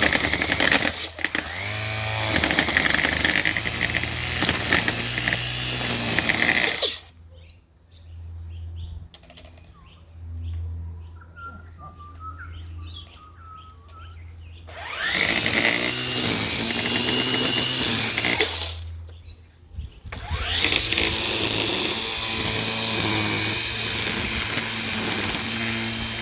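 Makita brushless electric multi-tool with its string-trimmer head, run in three long bursts with quieter pauses between. Each burst starts with a rising whine as the line head spins up to speed.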